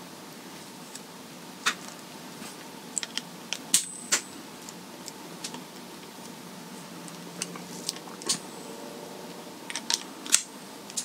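Wire cutter jaws snipping and snapping through a QS8 connector's plastic housing held in needle-nose pliers: a string of sharp clicks and cracks, loudest about four seconds in and again near the end, over a faint steady hum.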